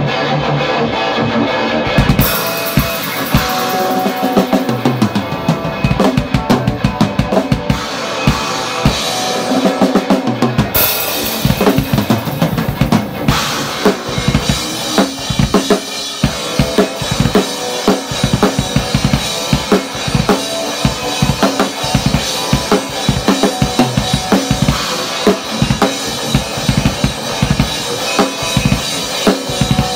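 Live rock jam: electric guitar playing alone, then a drum kit comes in about two seconds in. Kick, snare and cymbals are loudest, pounding steadily over the guitar.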